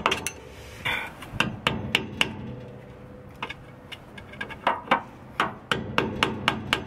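Hammer blows on a screwdriver driven under the old rear differential bushing's metal sleeve on a Nissan 350Z, chiselling the sleeve ring to break it off the diff mount. A dozen or so sharp strikes in uneven quick runs.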